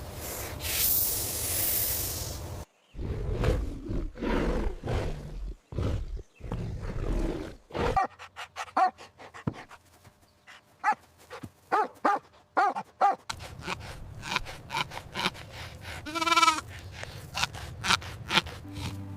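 A run of recorded animal calls. Low rough sounds come first, then many short pitched calls and clicks, and a wavering bleat about sixteen seconds in.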